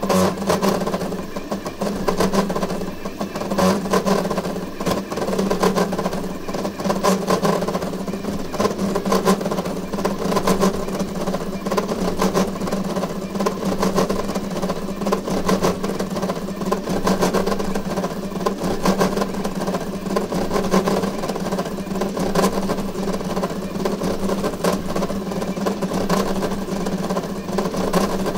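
Voron 3D printer running a high-speed print at 350 mm/s with 150k acceleration: its stepper motors buzz and whine, changing pitch rapidly with constant quick direction changes of the toolhead, over a steady hum.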